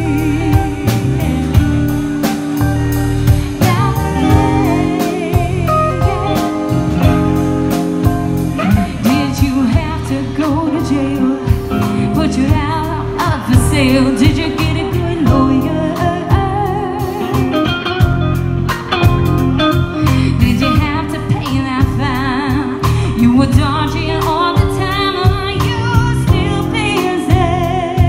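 Live band playing an upbeat soul-pop song: a woman sings the lead with a second female voice joining, over a drum kit keeping a steady beat and keyboard.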